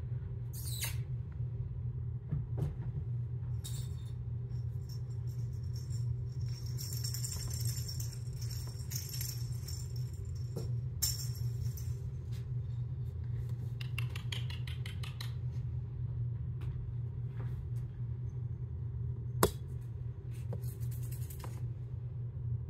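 Cat toys jingling and rattling in short bursts as kittens bat them about, over a steady low hum, with one sharp knock near the end.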